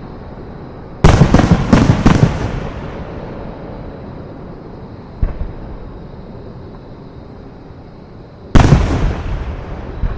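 Fireworks display shells bursting: a quick run of four or five loud bangs about a second in, a fainter single bang in the middle, and another loud boom near the end. Each fades out over a second or so.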